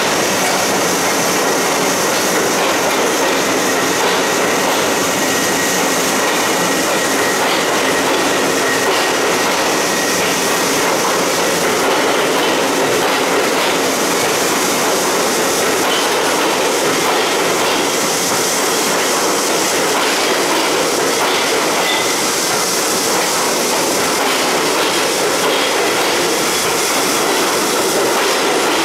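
R62A subway cars rolling out of an underground station, wheels running on the rails with a steady, even level and no pauses. A faint steady high tone sits over it through roughly the first half.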